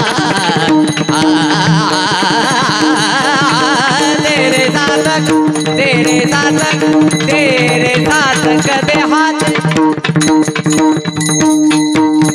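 Varkari kirtan music: a man singing an ornamented, wavering melody over a steady drone, with small hand cymbals (tal) and a pakhawaj drum keeping time. From about ten seconds in, the cymbal and drum strokes come to the fore.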